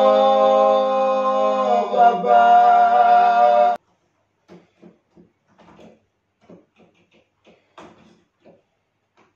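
A man's voice singing long, steady held notes, cut off suddenly about four seconds in. Then faint, irregular taps of fingers on the keys of a digital keyboard played with earphones in, so only the key clatter is heard.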